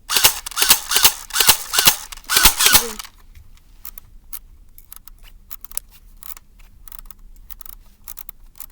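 Airsoft gun fired in a quick string of about eight sharp shots over roughly three seconds, followed by faint scattered clicks.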